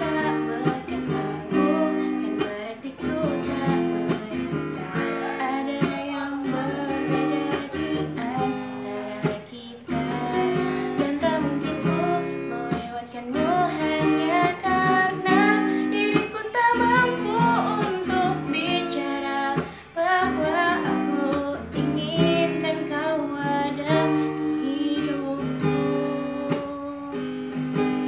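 A young woman singing a song to strummed acoustic guitar accompaniment, the music tailing off near the end.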